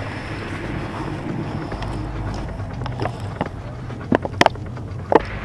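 Wind and handling rumble on a body-worn camera's microphone as the wearer moves through the undergrowth, with a handful of sharp clicks and snaps in the second half, the loudest about four seconds in.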